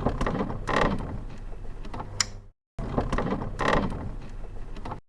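Mechanical clicking and rattling in two short stretches split by a sudden cut to silence about halfway through, with a sharp knock near the start of each.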